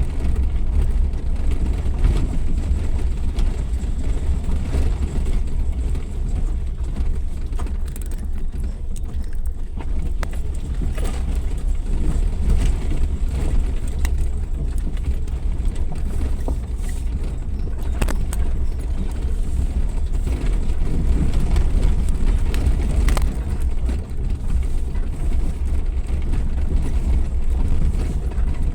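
Suzuki Jimny 4x4 driving off-road: a steady low rumble of engine and tyres, with a few sharp knocks scattered through.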